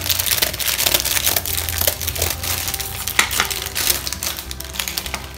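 Plastic bread packet crinkling and rustling in a steady run of quick crackles as it is cut open and handled and a hand reaches in for the bread.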